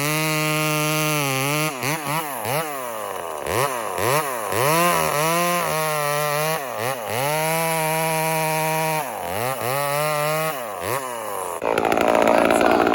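Chainsaw with a hand-filed square-ground chain, running at high revs while cutting dry oak. The engine pitch drops and climbs back again and again as the throttle and load change. Near the end the engine note gives way abruptly to a louder rushing noise.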